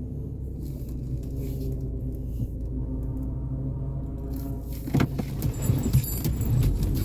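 A car running, heard from inside the cabin as a steady low hum. About five seconds in come a few knocks and a light jingling rattle.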